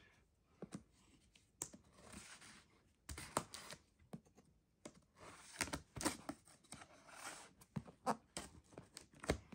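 A blade cutting and scraping along packing tape on a cardboard box: irregular sharp clicks and taps mixed with short rasping swishes of the tape and cardboard.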